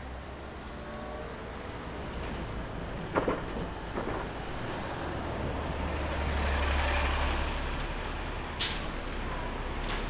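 A large vehicle passing, its rumbling noise building to a peak about two-thirds of the way through and easing off, with a short sharp hiss near the end.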